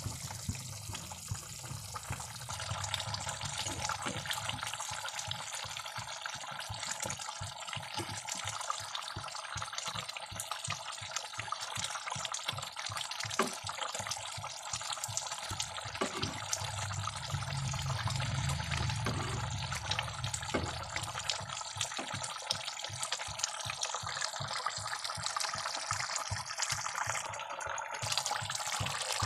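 Egg and brinjal curry bubbling as it simmers in the pan: a steady wet hiss with many small pops from the boiling gravy.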